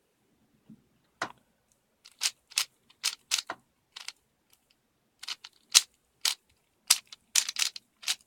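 Plastic 3x3 speedcube, a Dayan Zhanchi, having its layers turned by hand: a run of sharp, irregularly spaced clicks and clacks starting about a second in, as an algorithm is worked through.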